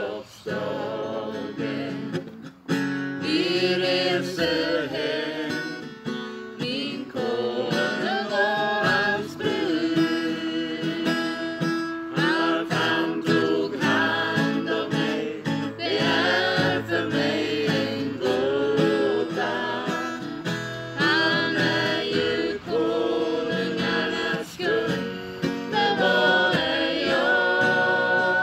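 A small mixed group of women's and young men's voices singing a song together in unison, accompanied by a strummed acoustic guitar.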